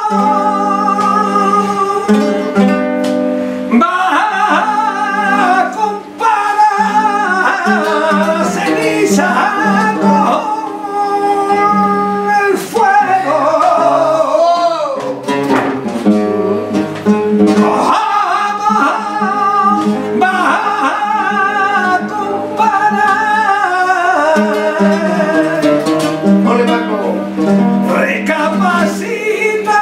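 A male flamenco singer sings fandangos in long, wavering, ornamented lines, accompanied by a flamenco guitar.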